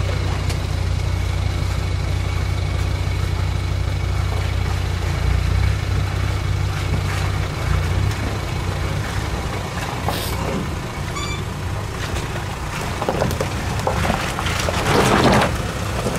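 Low engine rumble of a VW T5 van crawling down a rocky track, with tyres crunching and grinding over loose stones that grow louder as it comes close, loudest about a second before the end.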